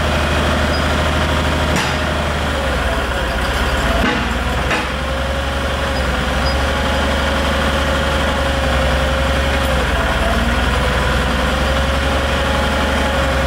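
2A042 military 42-cubic-inch two-cylinder air-cooled engine running steadily at constant speed, driving the excavator's hydraulic pump. A held whine over it dips briefly in pitch about four and ten seconds in as the boom and bucket are moved under load, with two short clicks early on.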